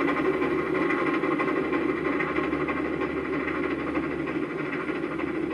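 Southern Pacific 4449, a 4-8-4 steam locomotive, running with its passenger train: a steady train rumble that slowly fades.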